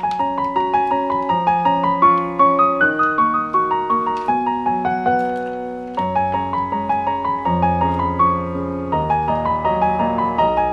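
Background instrumental music on piano: a light melody of quick notes over chords, with lower notes joining about six seconds in.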